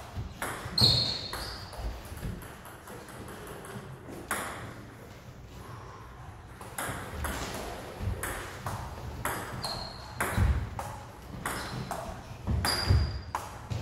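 Table tennis rally: the ball clicking off the paddles and the table in quick, irregular succession, with a few short high squeaks in between.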